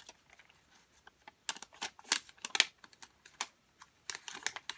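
Irregular light clicks and ticks of fingers handling a roll of glue dots, peeling dots off the liner.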